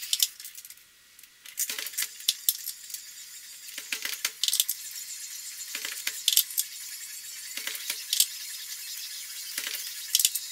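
Brass .223 cases and bullets clinking as rounds are loaded one after another on a small hand reloading press. A burst of clicks and clinks comes about every two seconds, five times.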